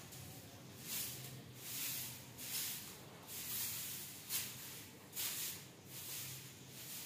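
Short handheld grass broom sweeping a stone-tiled floor: repeated brushing swishes, a little more than one a second.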